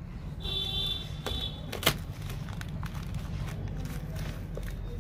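White foam packing squeaking as a knife blade is worked through it, twice in the first two seconds, followed by a sharp click; smaller clicks and handling noises follow over a low steady rumble.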